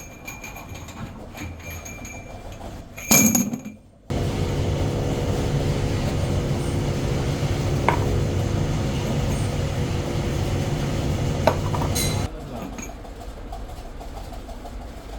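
A loud clatter about three seconds in, then a workshop machine running steadily with a low hum and a few light clinks for about eight seconds before it stops suddenly.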